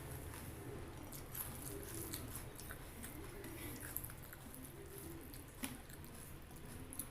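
Close-miked chewing of food, faint, with scattered wet smacks and clicks.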